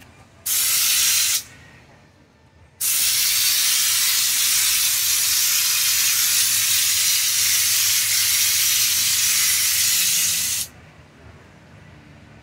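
Compressed-air spray gun with the liner bottle fitted, hissing as it sprays Raptor truck bed liner: a short burst of about a second, then one long burst of about eight seconds.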